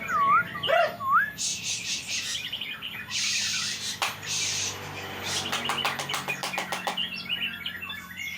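Murai songbird calling: a few whistled glides in the first second, then quick runs of clicking notes and a harsh hissing call in the middle, with more clicks and chirps toward the end.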